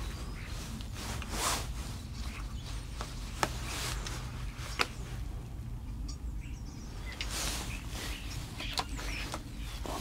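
Quiet hide ambience with a steady low rumble, a few sharp clicks and short rustles as the camera and long lens are handled, and faint bird calls from outside.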